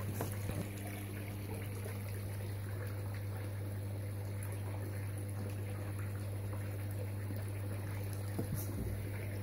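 Water trickling steadily over a constant low hum, with a couple of faint knocks or splashes near the start and near the end.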